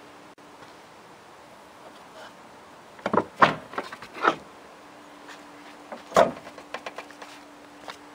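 Trunk lid of a BMW E21 being unlatched and opened: a quick cluster of clicks and clunks about three seconds in, then a sharper clunk about six seconds in followed by a few lighter rattling clicks.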